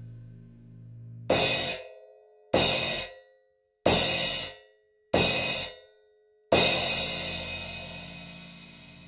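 Crash cymbal struck four times about a second and a quarter apart, each hit cut short after half a second. A fifth strike is left to ring out and slowly fade.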